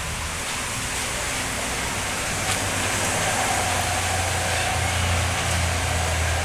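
A bus's diesel engine rumbling low and steady over road hiss, growing louder about five seconds in as it draws near.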